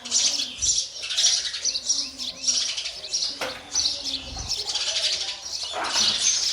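House sparrows chirping rapidly and continuously: short, high chirps crowding one after another, as at a nest where nestlings are being fed.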